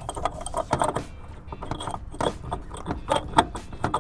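An aluminium oil catch can and its metal fittings being handled and pushed into place in an engine bay: an irregular run of sharp metallic clicks, knocks and rattles.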